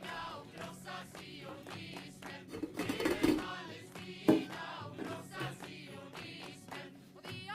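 Background music with singing voices and a steady beat, with one sharp hit about four seconds in.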